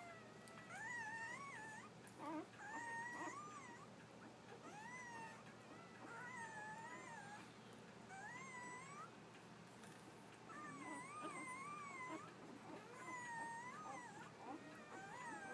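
Newborn Labrador puppies crying while they nurse: a string of faint, high, wavering cries, one every second or two, with one longer cry about eleven seconds in.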